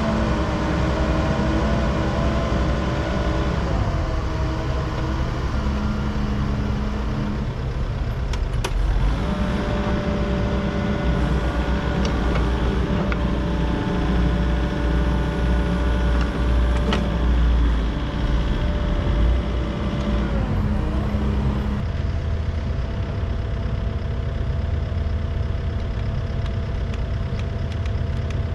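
Volvo excavator's diesel engine running with a hydraulic whine that steps up and down in pitch several times as the hydraulics are worked under load, then settles steadier about three-quarters through. A few sharp clicks come about 8, 12 and 17 seconds in.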